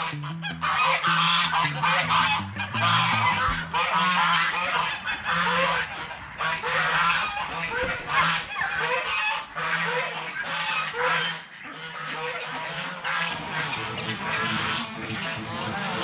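A flock of domestic geese honking, with many calls overlapping continuously.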